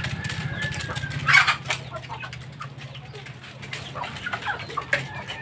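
Chickens clucking in their coops, with one loud, short squawk about a second in. A low steady hum runs underneath, and a thin high whistle sounds during the first second.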